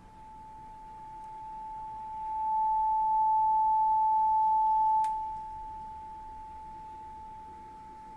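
A steady sine test tone a little under 1 kHz from a signal source fed into a cassette deck's input to check the level and that both channels match. It swells louder about two seconds in, holds, then drops back about five seconds in, with a faint click as it drops.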